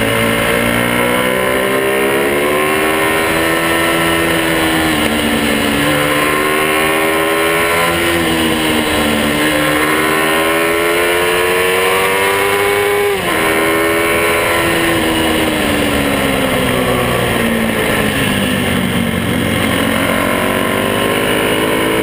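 Monkey bike (mini motorcycle) engine being ridden, its pitch rising and falling repeatedly as the throttle is opened and eased off. About thirteen seconds in the revs drop sharply and climb again, as at a gear change.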